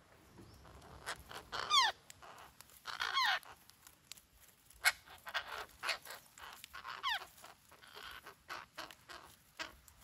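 A small flock of red-breasted parakeets calling at close range. Three harsh squawks slide down in pitch, and shorter sharp calls are scattered between them.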